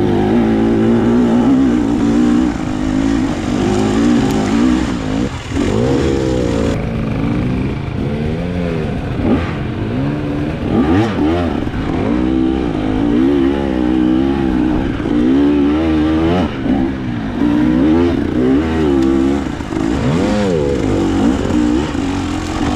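2024 KTM 300 TBI, a 300 cc fuel-injected two-stroke dirt bike engine, revving up and down under throttle while riding, its pitch rising and falling every second or two.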